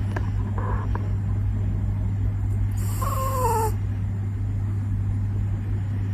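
Sleeping puppy snoring: a steady low rumble. About three seconds in there is one short, falling whine.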